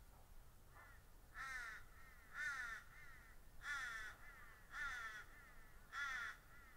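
A crow cawing: five loud, falling caws spaced a little over a second apart, with fainter calls in between.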